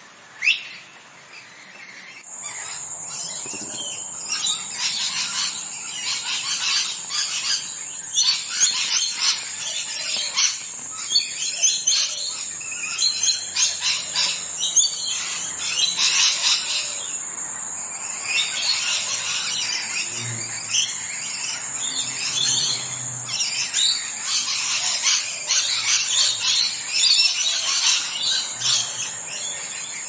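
Pet parrots chirping and calling in quick, overlapping bursts, quieter for the first couple of seconds. From about two seconds in, a steady high-pitched tone sits behind the calls.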